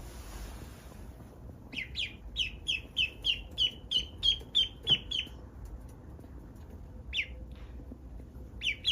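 Duckling peeping: a quick run of about a dozen short, high, falling peeps, about three a second, then a pause and two or three more near the end.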